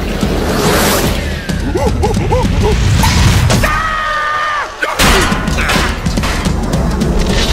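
Cartoon action sound effects: swishes and hits, with a few short rising-and-falling tones in the middle and a sudden loud hit about five seconds in.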